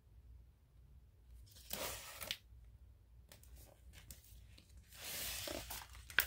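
Paper rustling as a picture-book page is handled and turned. A short rustle comes about two seconds in, then a longer swish of the page sliding over near the end, finishing with a sharp tap.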